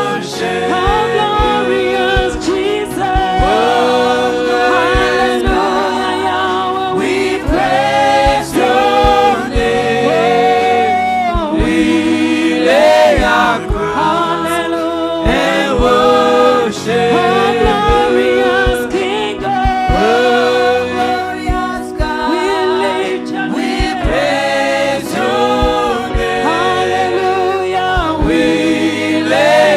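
Gospel worship song sung by a group of voices with instrumental accompaniment.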